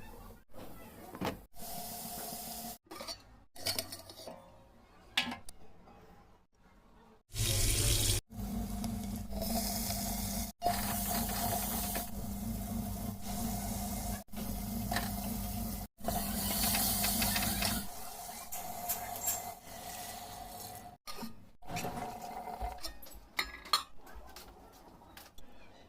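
Tap water running into a kitchen sink, heard in a series of short cut clips, loudest and steadiest through the middle. Occasional light clatter of pots and utensils.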